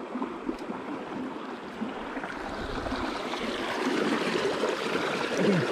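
Water splashing and sloshing as a caught fish is lowered by hand into a water-filled keep container, getting louder in the second half.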